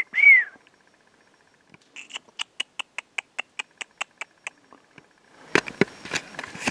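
A man imitating a chipmunk by mouth: a short high chirp that rises and falls, then a run of about a dozen sharp chips at about five a second lasting some two and a half seconds. Near the end come irregular knocks and rustling.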